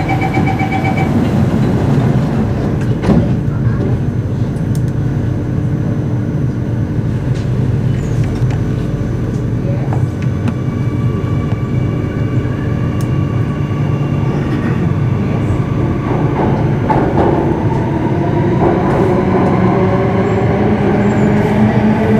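Singapore MRT Circle Line train at a station: door-closing warning beeps in the first second, over the steady hum of the car's equipment. Later the doors are shut and, from about two-thirds of the way in, the traction motors' whine rises steadily in pitch as the train pulls away.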